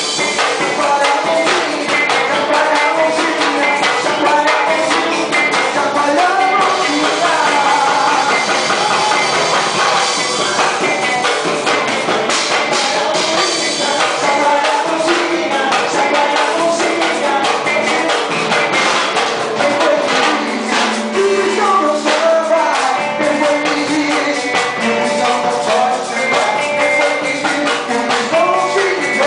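A band playing an upbeat gospel praise song, with singing over drums and percussion at a steady, loud level.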